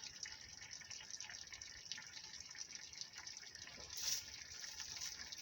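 Faint steady watery hiss with light ticks, and a brief louder rush about four seconds in.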